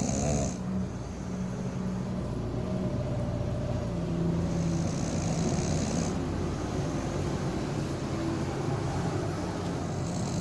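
Tugboat's diesel engine running steadily under load while towing a barge, a deep, even rumble. A hiss comes in twice over it, briefly at the start and again about four seconds in.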